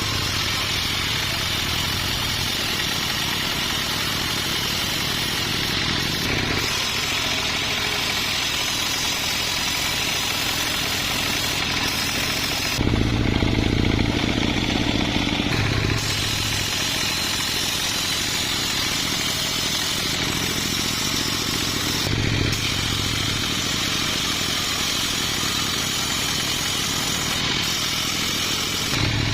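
Sawmill machinery running steadily: an engine drone under a bright hiss, changing abruptly every few seconds. About 13 seconds in it turns deeper and louder for about three seconds, with the high hiss gone.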